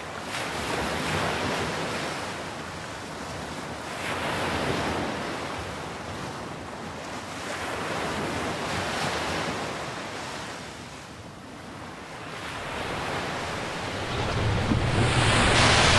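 Sea surf washing over rocks, swelling and ebbing in slow surges every few seconds, with wind buffeting the microphone, loudest near the end.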